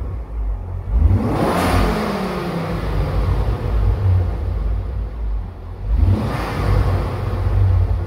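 Ford Focus ST's 2.5-litre turbocharged five-cylinder engine revved twice while the car stands still. A long rev rises and falls about a second in, and a shorter blip comes about six seconds in, with the engine idling in between.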